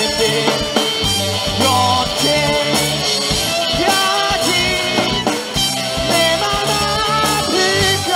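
Live rock band playing: electric guitars, bass guitar and drum kit with a steady beat, and a singer over them.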